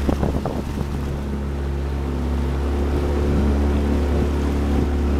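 Small motorboat's outboard engine running steadily at speed, with wind buffeting the microphone and water noise, and a short rush of noise right at the start.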